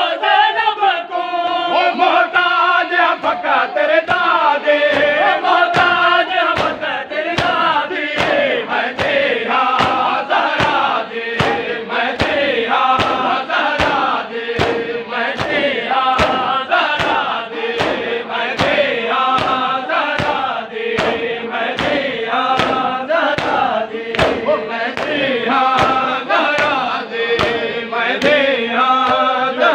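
Men chanting a noha, a Muharram lament, in unison, with rhythmic matam: hands slapping chests in a steady beat, about one and a half slaps a second, in time with the chant.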